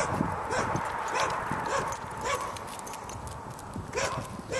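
A dog barking repeatedly, about two barks a second, with a pause of about a second and a half in the middle.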